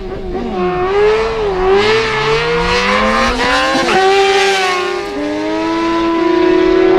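Two racing motorcycles launching and accelerating hard side by side down a drag strip. The engines climb in pitch and drop back at each gear change, several times over.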